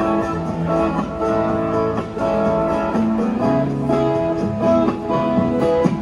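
Acoustic guitar music: strummed chords with a melody of plucked, held notes.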